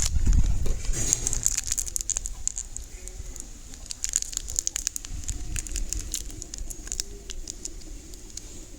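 Slime being squeezed and kneaded by hand, giving a dense run of small sticky crackles and pops, with a thump at the start.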